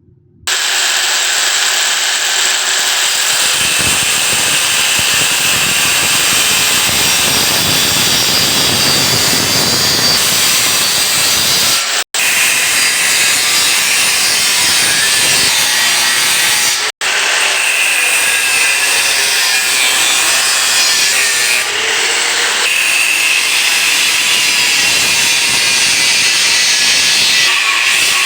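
A power tool working steel square tubing, a steady loud grinding hiss that starts about half a second in. It cuts out abruptly twice for a split second.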